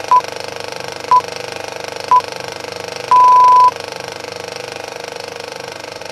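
Steady fast clatter of a film projector running, with three short, high beeps a second apart and then one longer beep.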